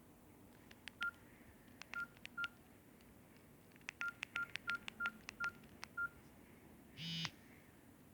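Samsung GT-E1200i keypad being pressed: sharp key clicks, each followed by a short beep, all beeps at the same pitch, nine in all in uneven runs. Near the end comes a short, harsher buzzing tone.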